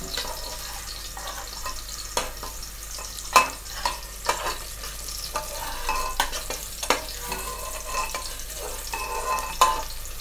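Onions frying in hot oil in a pot, a steady sizzle, browning toward reddish-brown. A spoon stirs them, scraping and knocking sharply against the pot now and then.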